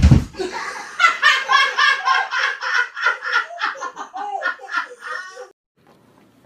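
A heavy thud of a person falling onto the floor, followed by hard, sustained laughter in quick repeated ha-ha bursts that stops abruptly near the end.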